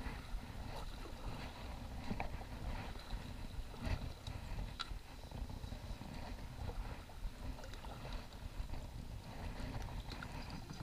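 Kayak paddling with a double-bladed paddle, heard muffled through a sealed action-camera housing: a steady low rumble with a few faint, scattered knocks and splashes from the strokes.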